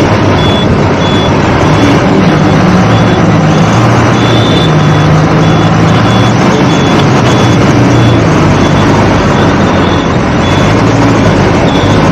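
Ashok Leyland tanker lorry's diesel engine running and road and wind noise at highway speed, heard from outside the cab. A short high-pitched beep repeats steadily about twice a second throughout.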